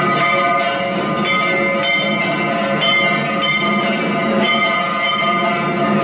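Puja bells ringing nonstop, struck over and over so that their ringing tones overlap.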